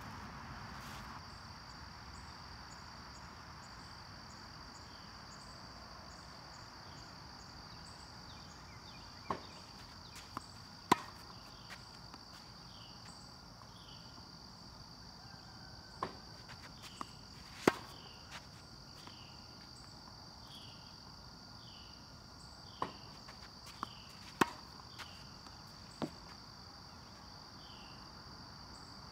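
Three backhand strokes against a tennis ball machine. Each time the machine pops a ball out, the ball bounces once, and a moment later the racket strikes it with a sharp hit, the loudest sound. Under it insects drone steadily with a repeating chirp.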